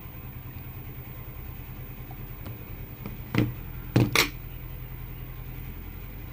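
Three short, sharp knocks in quick succession a little past the middle, from hands handling a phone and smartwatch on a wooden table, over a steady low hum.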